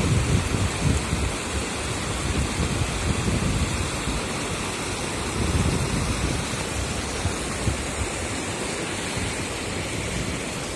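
Steady rush of floodwater spilling over a concrete weir, with low wind buffeting on the microphone that is strongest near the start.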